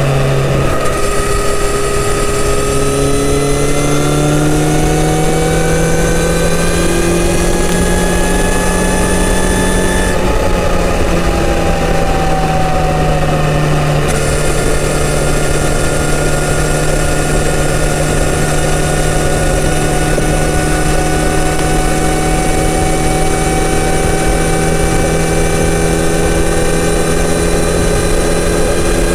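Kawasaki Z900RS inline-four engine pulling at road speed through its stock full exhaust system, heard from the rider's seat with rushing noise underneath. Its pitch climbs slowly for about the first ten seconds, then settles into a steady cruise.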